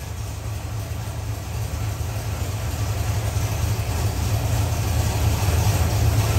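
Modified 7.3-litre Ford Godzilla V8 race engine, built with 12.0 compression and a custom cam, running on an engine dyno. It is heard through the dyno-cell window as a steady low drone that grows gradually louder.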